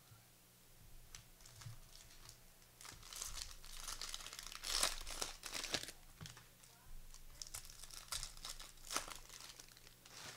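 Trading-card pack wrappers being torn open and crinkled: a run of crackling rustles, loudest about four to six seconds in and again around nine seconds.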